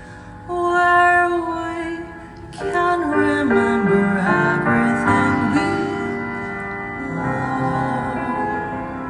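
Live jazz performance: a woman sings long held notes and sliding phrases over the band's accompaniment.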